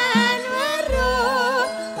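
Javanese gamelan gending with a singer's winding, ornamented melody over steady held instrument tones.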